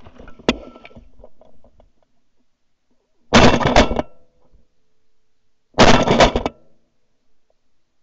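Two shotgun shots about two and a half seconds apart, heard close up through a gun-mounted camera, each a sudden loud blast dying away in under a second. A single sharp click comes about half a second in.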